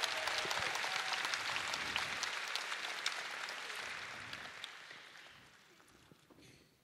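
Crowd applauding in an arena, fading away over several seconds.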